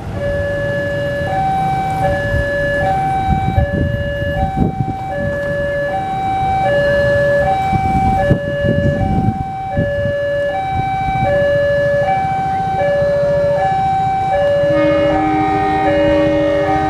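Railway warning alarm sounding two alternating tones, a high-low pair about every second and a half, over the low rumble of a diesel locomotive pulling a passenger train. A second, lower pair of tones joins near the end.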